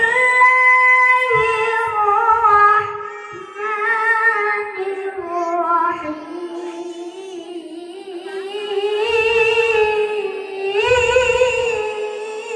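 A child's voice reciting the Qur'an in melodic qiroah style over a PA system, with long held, high notes and wavering ornaments, rising and falling in phrases.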